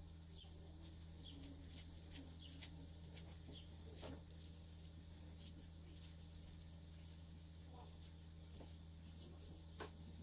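Near silence: room tone with a steady low hum, faint short high chirps and a few soft ticks.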